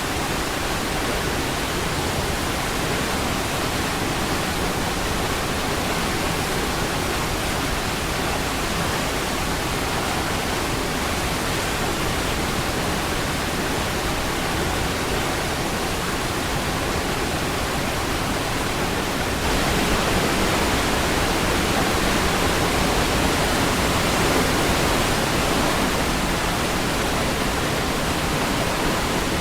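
Niagara Falls' water pouring over the falls: a steady, dense rush of white-noise-like sound, which grows a little louder about two-thirds of the way through.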